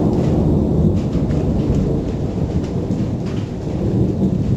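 Thunder rolling after a nearby lightning flash: a long, continuous low rumble, with a few faint ticks above it.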